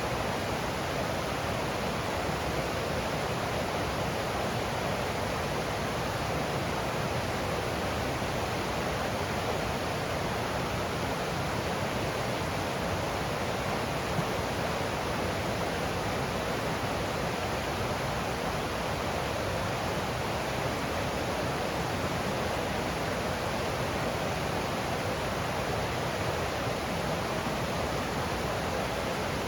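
Forest stream running over rocks: a steady rushing of water.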